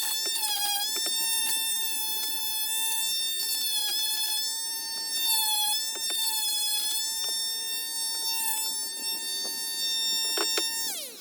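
Electric sander motor running with a steady high whine, its pitch dipping slightly now and then as it is pressed into the work, with light clicks. Near the end it is switched off and winds down.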